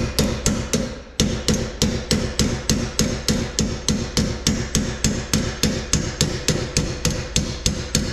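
Hammer striking a 3/8-inch socket extension used as a punch, in a steady run of quick, evenly spaced metal-on-metal blows with a ringing note, driving a worn stock bushing out of a trailer leaf-spring suspension.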